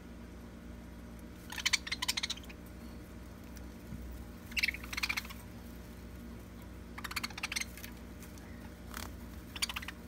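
Budgerigars chattering in four short scratchy bursts of rapid clicks and chirps, over a steady low hum.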